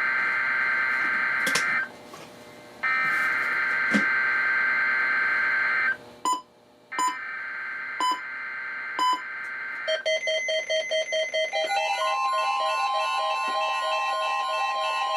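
NOAA Weather Radio SAME digital header: three buzzy data bursts with short gaps between them. From about 10 s in, the receiving weather radios set off their alert alarms together, a dense mix of overlapping beeping alarm tones. A steady warning alarm tone joins them about two seconds later.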